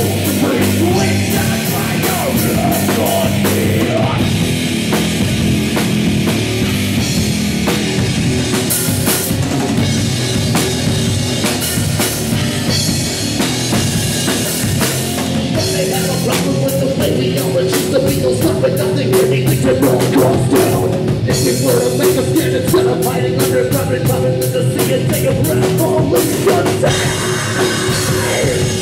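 Live rock band playing loud: drum kit, electric bass and electric guitars, with a singer's voice toward the end.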